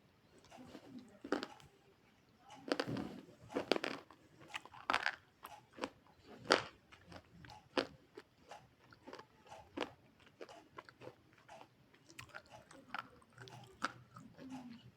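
Close-up biting and chewing of something hard and crunchy: a few loud crunching bites in the first seven seconds, then quicker, smaller crunches as it is chewed.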